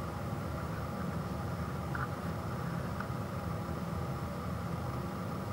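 Steady background hum and hiss of room noise, with a couple of faint ticks about two and three seconds in.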